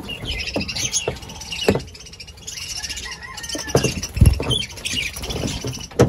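A flock of budgerigars chattering with quick, warbling chirps. A few sharp knocks come through, and a dull thump about four seconds in is the loudest moment.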